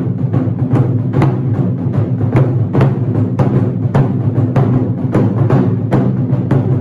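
Nagado-daiko taiko drum struck with wooden bachi in the low-stance Miyake style: a continuous run of heavy strikes on the drumhead, several a second, with the deep drum ringing on between them.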